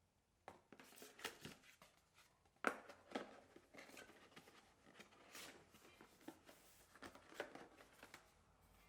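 Packaging being handled during a laptop unboxing: irregular rustling, crinkling and light taps that start about half a second in, with one sharper click near the three-second mark.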